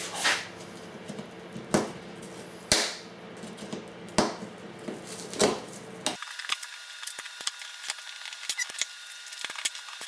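Staple puller prying staples out of a cardboard shipping box: sharp snaps about a second apart, then a run of lighter, quicker clicks in the second half.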